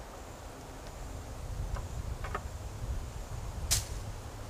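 Knife cutting the head off a quail on a cutting board: a few faint clicks, then one sharp click about three and a half seconds in as the blade meets the board, over a low rumble.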